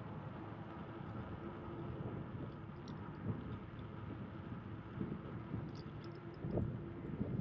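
Steady rushing noise of riding a bicycle along a paved path, with wind on the microphone and a faint hum that comes and goes. A few short knocks and rattles from the bike are heard, the loudest about six and a half seconds in.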